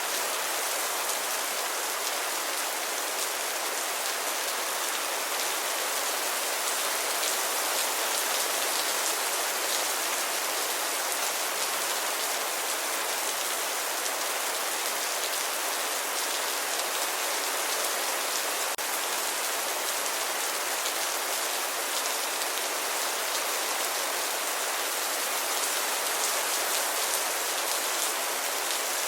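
Steady rain, an even hiss of many fine drops striking a surface.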